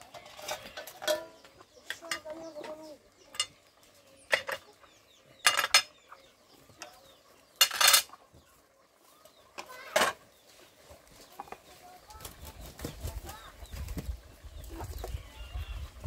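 Pots and kitchen utensils clanking sharply several times, the loudest a double knock about five and a half seconds in and a longer clatter near eight seconds, with hens clucking. A low rumble comes in for the last few seconds.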